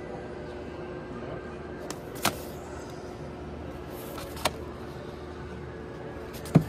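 Vinyl LP sleeves being flipped through by hand in a record crate, with three sharp slaps about two, four and a half and six and a half seconds in as the jackets fall against one another, the last the loudest. A faint steady hum runs underneath.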